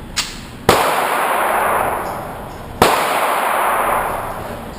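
Two pistol shots about two seconds apart, each a sharp crack followed by a long echoing decay, with a fainter sharp report just before the first.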